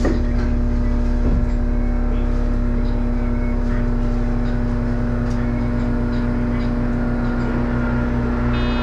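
Inside a tram standing at a stop: a steady low electrical hum with one constant tone over a low rumble. A short electronic beep sounds near the end.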